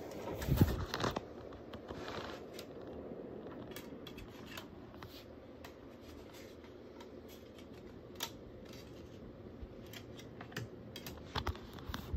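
Scattered clicks and knocks of a handheld camera being moved and handled, louder in the first second, over a faint steady hiss.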